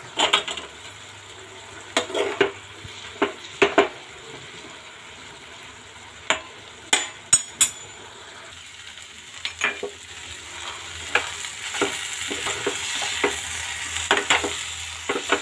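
A steel spoon stirring cauliflower, peas and potato in a kadhai, with repeated sharp knocks and scrapes against the pan. Under the knocks the vegetables sizzle, and the sizzle grows louder in the second half.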